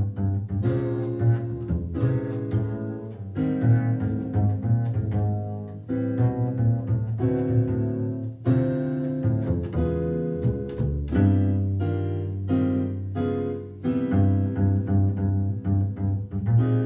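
Instrumental music played live: a small ensemble with a bass line and piano.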